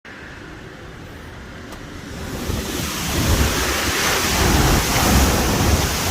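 Typhoon wind blowing hard, buffeting the microphone with a deep rumble and a loud hiss. It swells markedly about two to three seconds in, rising from a moderate rush to a strong gust.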